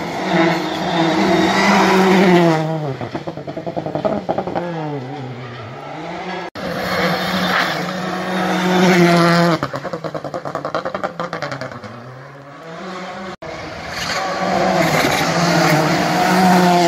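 Rally cars passing at speed one after another, their engines revving high, the pitch falling and then climbing again on each pass. The passes are joined by two abrupt cuts.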